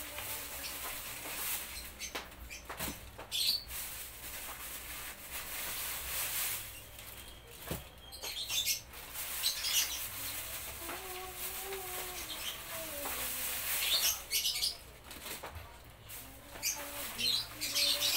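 Birds chirping in scattered short bursts.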